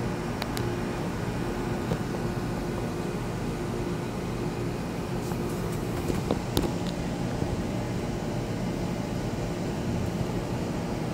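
Steady low mechanical hum with a faint held tone through it. A few light clicks come about half a second in and again around six and a half seconds.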